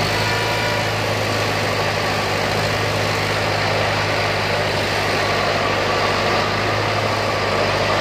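Heavy diesel engine running steadily, a deep even drone.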